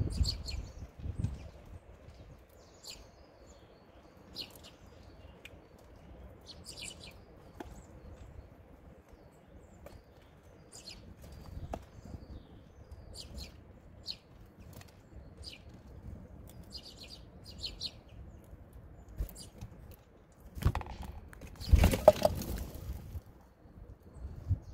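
Small songbirds give short high chirps again and again. A red squirrel scrabbles and knocks about on the wooden feeder tray among the seeds, with a louder scuffling clatter near the end.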